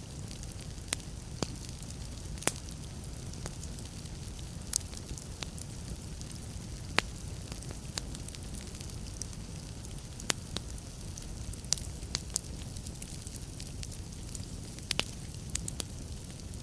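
Wood fire burning in a fireplace: a steady low rumble of the flames with irregular sharp crackles and pops, one pop standing out about seven seconds in.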